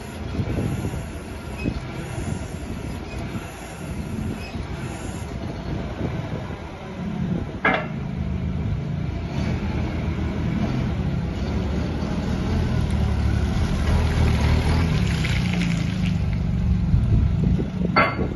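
Cat GP15N LPG forklift's engine running as the truck is driven, its note firming up and growing a little louder from about halfway through. There are two brief sharp squeaks or clanks, one near the middle and one near the end.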